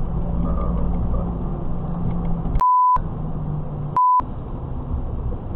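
Steady engine and road drone heard from inside a moving car's cabin. It is broken twice by a pure, single-pitch censor bleep that mutes everything else, about two and a half seconds in and again about four seconds in, the second one shorter.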